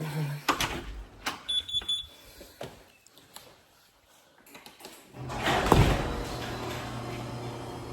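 A few clicks and a short high beep. Then, about five seconds in, the Challenger Scat Pack's 392 Hemi V8 cranks and fires on a cold start, flaring up loudly for a moment before settling into a steady idle through its mid-muffler-deleted exhaust.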